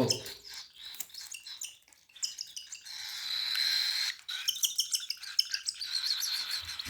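Cockatiel chicks' food-begging calls: quick runs of high-pitched chirps, with a thin held squeal for about a second in the middle and again near the end.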